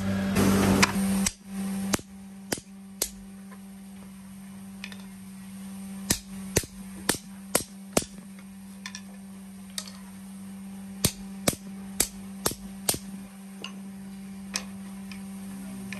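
A sanding drum grinding a wooden spoon gives way about a second in to sharp taps of a small hammer on a metal punch against the wooden spoon handle resting on a stone block, in three quick groups of several taps with pauses between. A steady low hum runs underneath.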